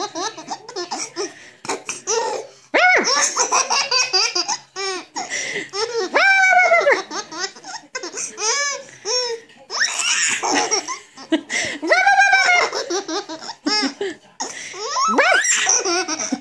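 A baby boy of nearly eight months laughing hysterically at a stuffed toy dog, in repeated bouts of high-pitched belly laughs.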